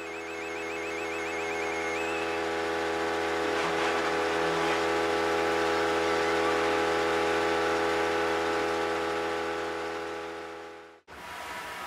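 Pachinko machine sound: a long sustained electronic chord that swells up and then fades out about eleven seconds in, with a fast repeating chirp above it in the first two seconds.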